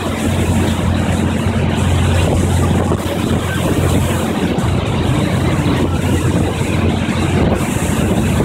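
Towing boat's engine running steadily under way, a constant low hum over the rush of churning wake water.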